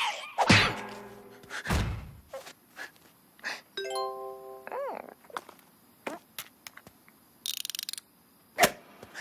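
Cartoon slapstick sound effects with no speech: a loud ringing impact just after the start and a low thud, a short chime about four seconds in followed by quick gliding tones, scattered light ticks and taps, a fast rattle near eight seconds and a sharp knock near the end.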